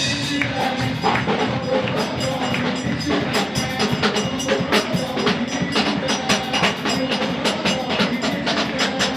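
Church music with fast, steady percussion: a run of quick, even strikes over sustained instrument tones.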